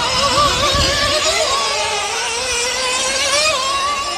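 Small nitro engines of 1:8 scale RC off-road buggies racing, a high-pitched buzz whose pitch rises and falls as the cars speed up and slow for corners.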